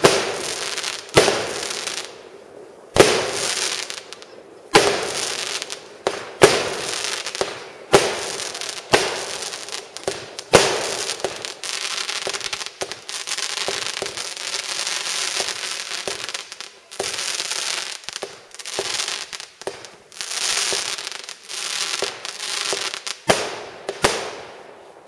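Fireworks display: aerial shells bursting with sharp bangs about every one to two seconds, each trailing off in a hiss. About halfway through, the bangs give way to a denser run of smaller cracks over a continuous hiss.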